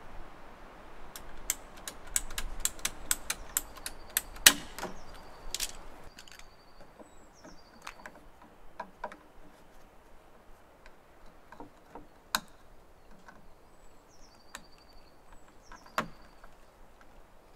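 Plastic hose fittings and tubing clicking and knocking as they are handled and pushed together on a water pump: a dense run of clicks in the first few seconds with the loudest knock about four and a half seconds in, then a few scattered sharp clicks. A bird calls twice, each a short high falling note followed by a brief trill.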